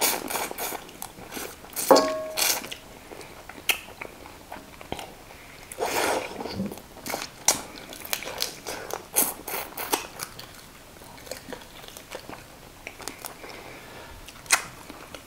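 Close-miked eating sounds: chewing and crunching on chicken pieces and bones eaten by hand. Irregular wet clicks and short smacking bursts come in clusters, loudest about two and six seconds in.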